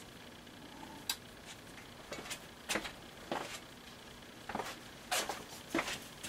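A shop rag wiping metal chips and swarf off a milling machine's steel table: a series of short, light scrapes and rustles at uneven intervals.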